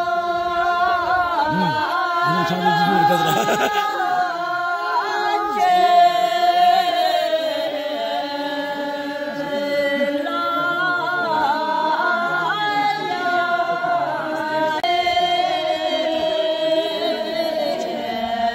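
A group of women singing together unaccompanied, a traditional Bhutanese archery song: long drawn-out notes that step to a new pitch every few seconds.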